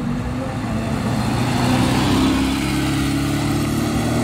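Talbot Matra Murena's engine as the car drives out and passes close by, growing louder about a second and a half in, its note rising slightly as it accelerates away.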